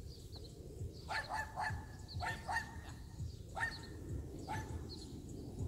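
A dog barking in short, fairly high-pitched barks, about six of them spread over the middle few seconds.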